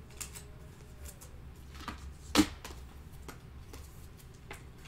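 Trading cards being handled: light rustles and scattered small clicks, with one sharper click about two and a half seconds in.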